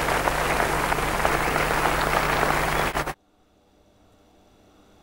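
Crowd applause, a dense clatter of many hands clapping, cut off abruptly about three seconds in, leaving only a faint hiss.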